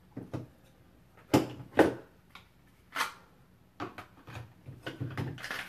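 Hard clacks and knocks of a pistol and a kydex holster being handled: two sharp ones close together about a second and a half in, a third about a second later, then lighter taps and rustling.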